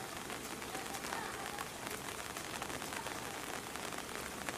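Steady rain falling, with many small sharp drop ticks over an even hiss.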